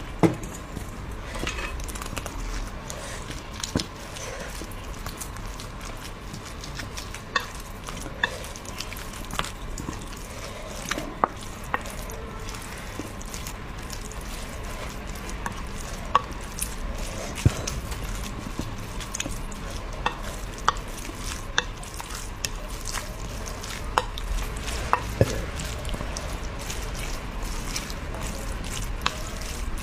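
Wooden spoon stirring and mixing rice into a saucy braised pork dish on a ceramic plate, with sharp clicks of the spoon against the plate every few seconds, the loudest right at the start.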